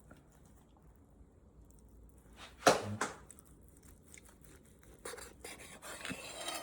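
Knife slicing through boiled pork belly with chewy skin: a sharp knock about two and a half seconds in, a lighter one just after, then a run of short rasping cuts near the end.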